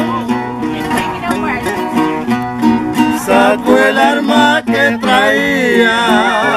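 Two acoustic guitars accompanying two men singing a corrido in Spanish, with a long wavering held vocal note near the end.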